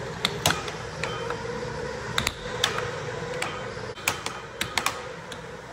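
Air hockey puck clacking off plastic mallets and the rails of a Galaxy Collision air hockey table during a rally: an irregular run of sharp clacks, several a second at times, over a steady hum.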